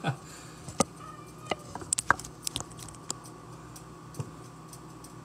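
A few light clicks and knocks, scattered irregularly and unevenly spaced, over a faint steady tone.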